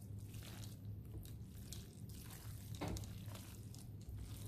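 Creamy spaghetti being tossed and stirred in a skillet with silicone-tipped tongs: soft wet squishing with light clicks and scrapes, one a little louder near the middle, over a steady low hum.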